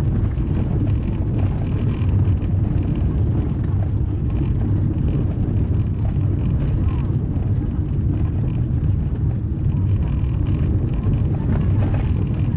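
Car driving on a gravel road: a steady low rumble of tyres on gravel and engine, with scattered faint ticks.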